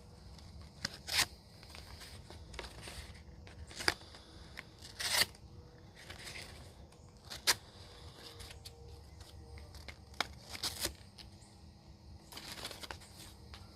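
Rough Rider Half Hawk knife blade slicing through material in a series of separate cutting strokes, each a short sharp tearing scrape, about eight in all with pauses between.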